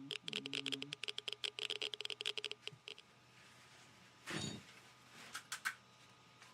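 Handheld dosimeter (Geiger counter) clicking rapidly over a low electronic tone for about two and a half seconds, registering radioactive contamination. A brief rustle about four seconds in, then a few faint clicks.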